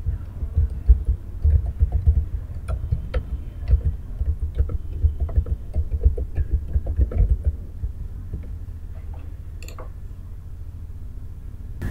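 Typing on a computer keyboard: irregular key clicks with low thumps, thinning out about eight seconds in, then a single sharper click near the end.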